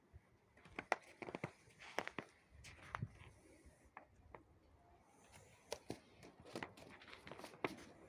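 Faint, irregular footsteps and knocks, a dozen or so scattered sharp clicks with quiet between them.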